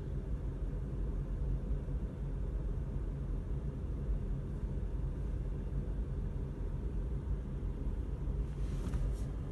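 Delaware and Hudson diesel locomotive engine running with a steady low rumble; its uneven running is taken by the onlooker for misfiring, possibly from faulty injectors. A brief hiss near the end.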